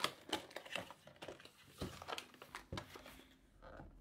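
Foil trading-card booster-pack wrappers crinkling and rustling as packs are handled and opened, in a string of irregular sharp crinkles and snaps.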